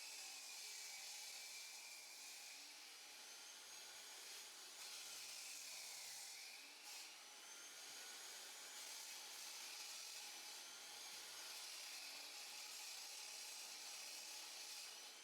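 Power saw cutting a concrete slab, faint: a steady high hiss with a motor whine that dips and recovers as the blade loads and frees.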